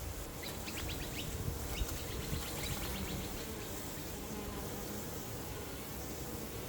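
Honeybees buzzing, a steady continuous hum of many wings.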